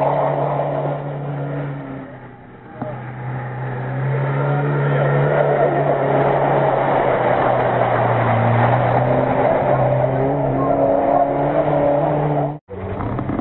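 Off-road car engine running hard and revving as it pushes through mud and water. It eases off for about a second around two seconds in, then picks up again, and cuts out briefly near the end.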